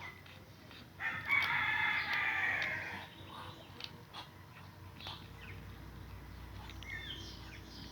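A loud, drawn-out animal call about a second in, lasting about two seconds, followed near the end by a few faint bird chirps.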